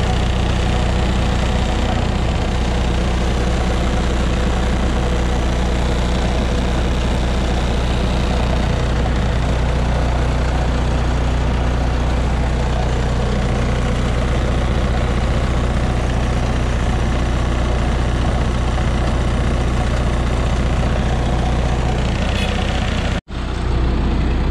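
MEP-802A military diesel generator running steadily with no load, warming up toward operating temperature. The sound drops out for a split second near the end.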